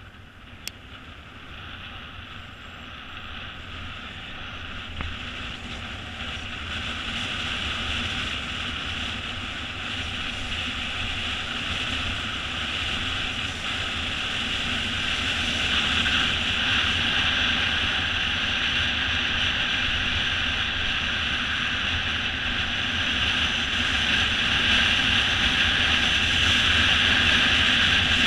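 Wind rushing over the camera and tyres humming on asphalt as a mountain bike coasts downhill, growing steadily louder as it picks up speed.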